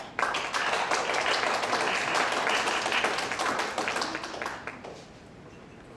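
Audience applause: many people clapping together, starting straight away and dying down about five seconds in.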